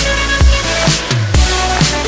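Background music: electronic track with a steady beat of deep kick drums and held synth notes.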